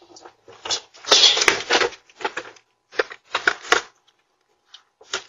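A baby stroller being wheeled and bumped down porch steps: a series of short, irregular rustling and clattering noises, the longest about a second in.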